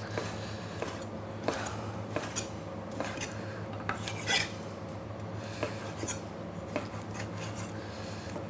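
Chef's knife slicing raw chicken breast into strips on a wooden cutting board: the blade knocks on the board irregularly, about once or twice a second, over a low steady hum.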